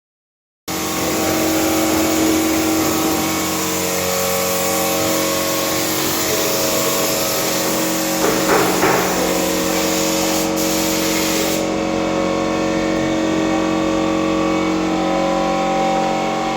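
A compressor running with a steady hum and a loud hiss of air spraying. The hiss cuts off suddenly about twelve seconds in while the hum carries on, and there is a brief burst of rougher noise a little past the middle.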